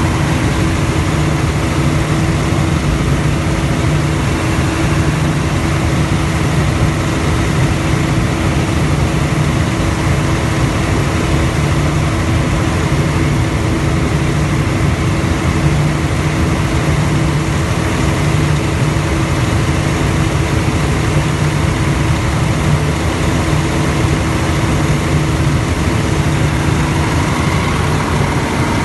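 Cummins C550D5E 500 kVA diesel generator set running steadily with a constant engine drone and hum.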